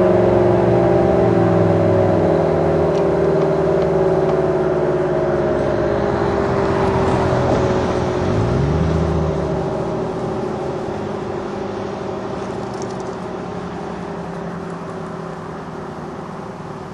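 Federal Signal Allertor electronic outdoor warning siren winding down at the end of a test. Its chord of several tones slowly falls in pitch and fades away.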